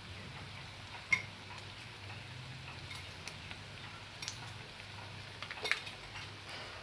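A metal utensil clinking against a cooking pan a few times, with a sharp clink about a second in and a quick cluster of clinks near the end, over a low steady hum.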